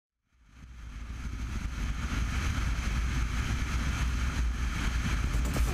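Wind rushing over a motorcycle-mounted GoPro microphone with the low rumble of an Aprilia Caponord Rally Raid's V-twin engine at road speed. It fades up from silence over the first couple of seconds, then holds steady.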